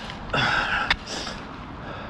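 A person breathing out hard, a short breathy gasp about a third of a second in and a fainter one just after a second, over steady road and wind noise while riding a bike. A single sharp click just under a second in.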